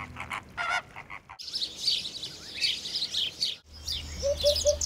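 A flock of greater flamingos calling with goose-like honks for about the first second and a half, followed by small birds chirping high. Near the end a Eurasian hoopoe gives its 'oop-oop-oop' call, three short low notes, with other birds chirping above it.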